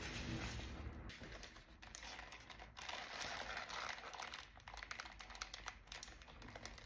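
Close-miked chewing: a dense run of small wet mouth clicks and crackles, busiest in the middle.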